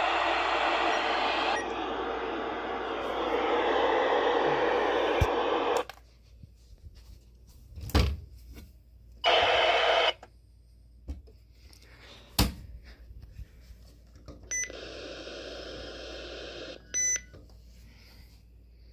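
Weather radio receiver hissing with static on a dead channel, because the station is off the air. The hiss cuts off about six seconds in. After it come a few sharp clicks, two short bursts of static and, near the end, a couple of seconds of static with a steady tone through it and a short beep.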